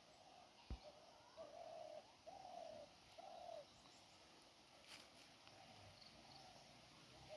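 A bird calling faintly: a run of short, low hooting notes, each about half a second long, coming about every half second, then softer further on. A soft thump comes under a second in, and a brief click near the middle.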